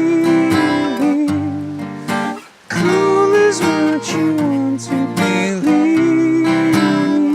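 Live solo performance: acoustic guitar strummed and picked, with a wordless sung melody held and bent over it. The sound drops away briefly about two and a half seconds in, then carries on.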